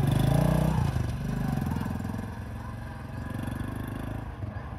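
Motorcycle pulling away under load, its engine note rising twice as it picks up speed, then fading as it rides off.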